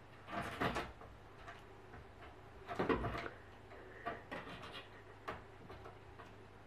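Cat scrambling on the top edge of an open wooden door: clusters of knocks and rattles from the door and claws on wood. The loudest cluster comes about three seconds in, with smaller knocks after it.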